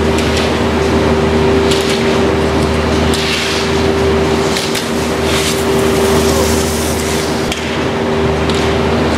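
Slalom skis scraping and hissing on groomed snow in short bursts as a skier carves turns through the gates, with a few sharp knocks like gate poles being struck. Under it, a steady loud machinery hum.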